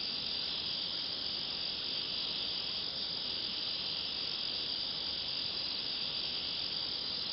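Steady, high-pitched insect chorus without a break.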